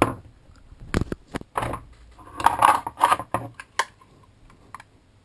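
Kel-Tec PF9 pistol with a mounted light being seated into and pulled out of a Kydex inside-the-waistband holster: a run of sharp, hard-plastic clicks and scrapes as the Kydex grips the gun, dying away after about four seconds.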